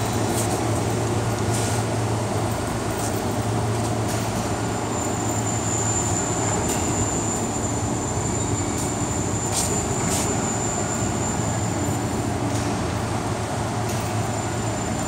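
Steady industrial machinery noise: a constant low hum under an even hiss, with a thin high whine for several seconds in the middle and a few faint clicks.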